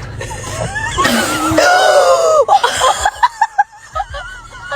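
A person screams for about a second and a half, then breaks into a run of short bursts of laughter.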